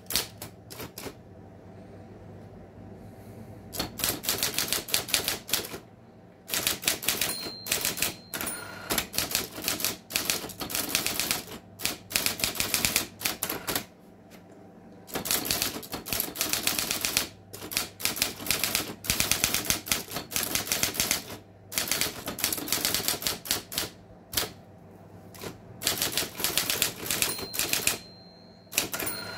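East German electric typewriter being typed on in quick runs of key strikes with short pauses, over the steady hum of its running motor. A short high ring sounds twice, about seven seconds in and near the end.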